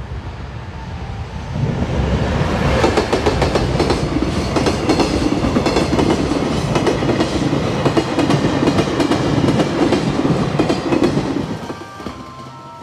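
Electric freight locomotive and a long string of container wagons passing close by, the wheels clattering over the rail joints. The sound swells about a second and a half in, holds, and fades near the end.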